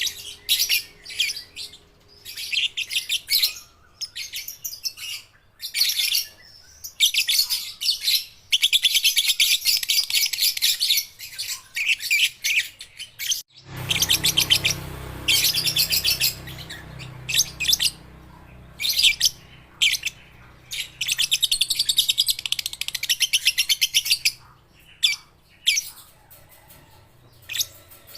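Young lovebirds chirping in quick, high notes that run together into rapid chattering trills several seconds long. About halfway through, the recording cuts and a low hum appears behind the chirps.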